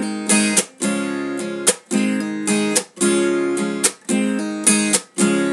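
Acoustic guitar strummed in a steady rhythm, the chords breaking off briefly about once a second.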